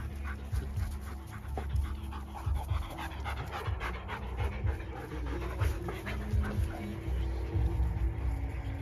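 A German shepherd panting close to the microphone, in quick, rhythmic breaths, over soft music and a low, uneven rumble.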